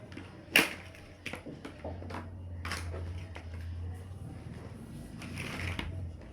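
Plastic building blocks being handled and pressed together: scattered sharp clicks and clatter, the loudest click about half a second in, with a low rubbing noise of handling in between.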